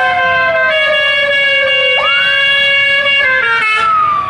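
Basuri telolet bus air horn playing a tune of held chords that change pitch in steps, over a siren-like tone gliding slowly down, with a second tone sweeping up and holding about two seconds in. The chords stop shortly before the end, leaving the falling siren tone.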